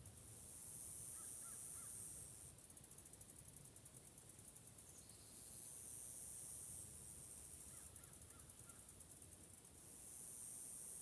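Spring forest ambience: a high-pitched buzz swells for a couple of seconds and fades, twice, over a faint low rumble. A few faint distant bird calls come about a second in and again about eight seconds in.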